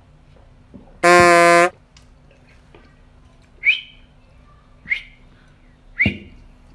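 A loud electronic buzzer sound effect: one flat, steady tone lasting under a second, marking the end of the countdown timer. Three short high chirps follow, about a second apart.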